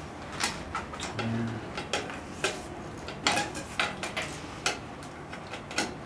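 Short, irregular metal clicks and clinks of a bicycle front wheel being handled and set into the fork, the axle and its fittings knocking against the fork ends.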